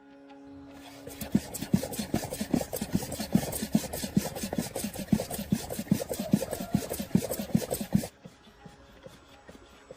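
Rapid back-and-forth rubbing or scraping strokes, about four or five a second, like hand tool work on a part. They start about a second in and stop abruptly near eight seconds.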